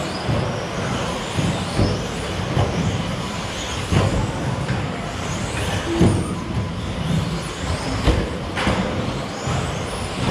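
1/10-scale electric RC stadium trucks with 13.5-turn brushless motors racing: the motors whine up and down in pitch as they accelerate and brake. There are several sharp knocks as trucks land jumps and hit the track.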